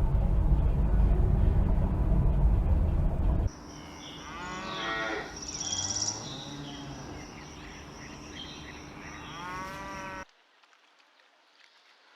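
A loud low rumble, then a sudden cut to a cow mooing twice, with a faint high steady insect-like tone behind the calls; the sound cuts off abruptly near the end.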